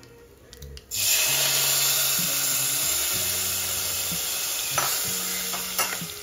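Hot tempering oil with spice seeds poured onto mashed tomato in a steel pressure cooker, sizzling loudly. The sizzle starts suddenly about a second in and slowly dies down, with a couple of light clicks near the end.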